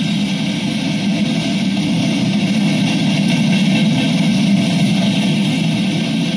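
Freight train's open-top hopper cars rolling past, a steady rumble and rattle of wheels on rail, heard as played back through a computer's speaker.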